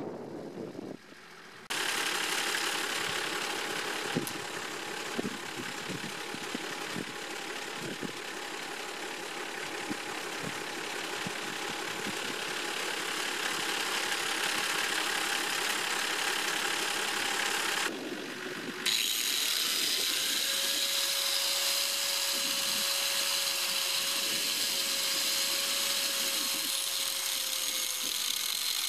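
Electric angle grinder running steadily, with a short break about two-thirds of the way through. After the break a steady whine runs over the noise as an abrasive cut-off disc begins cutting into a steel railway rail.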